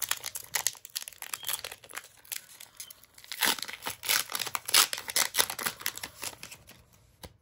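A Pokémon booster pack's foil wrapper being torn open and crinkled: dense crackling that is busiest in the middle and dies away near the end.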